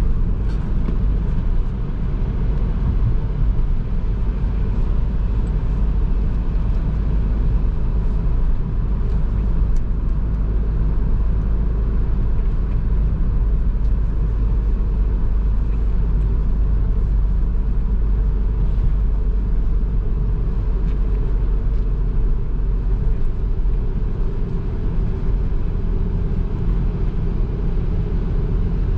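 Nissan NV200's 1.5 dCi four-cylinder diesel running steadily while the van is driven, with a continuous low rumble of engine and road noise.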